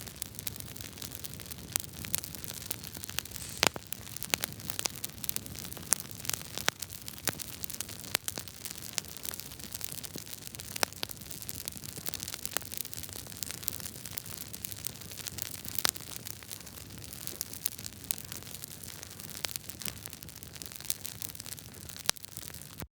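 Wood fire crackling in a fireplace: a steady hiss of burning logs with frequent irregular sharp pops and snaps, a few of them much louder than the rest.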